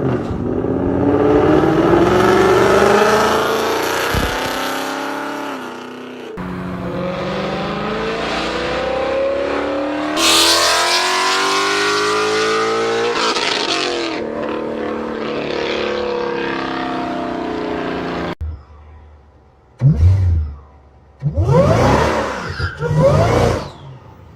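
Supercharged car engines accelerating in a run of separate clips, each with a pitched whine that rises with the revs. Near the end come a few short, sharp blips of the throttle.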